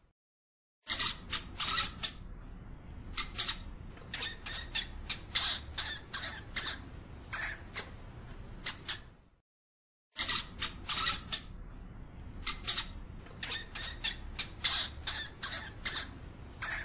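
European hamster (Cricetus cricetus) giving quick, irregular series of short, sharp, high-pitched squeaks and chirps over a faint low background. The calls break off for about a second at the start and again about nine seconds in, then the same run of calls starts again.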